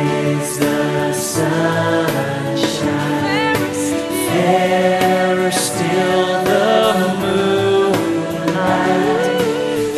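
Worship music: a choir singing sustained, gliding lines over instrumental accompaniment.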